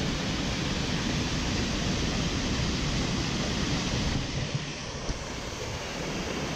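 Floodwater rushing steadily through a concrete spillway chute, a continuous even rush of water that dips slightly about two-thirds of the way through.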